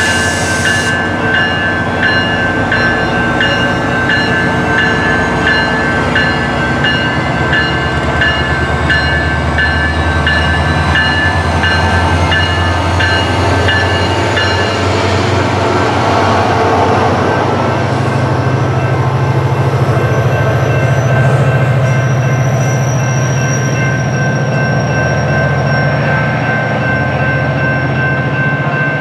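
SunRail MP32PH-Q diesel locomotive pulling away with its bilevel coaches. Its bell rings in steady strokes until about halfway through, after a horn blast that ends about a second in. The diesel engine's low drone rises in pitch and grows as the train passes, with a faint rising high whine in the second half.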